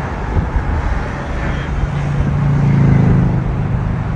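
Road and engine noise from a moving car, with a low engine hum that swells to its loudest about three seconds in and then eases.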